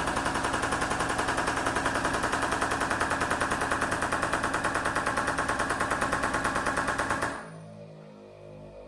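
Air-driven pump of a 12-ton Pittsburgh air/hydraulic bottle jack chattering rapidly, about seven or eight strokes a second, while it fails to lift the vehicle on air from an ARB twin compressor. The chattering cuts off about seven seconds in.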